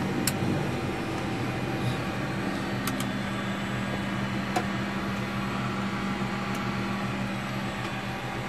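Steady machinery hum in the cockpit of a Lockheed L-188 Electra on the ground, with a low steady tone that grows stronger about two seconds in. A few light clicks sound over the hum.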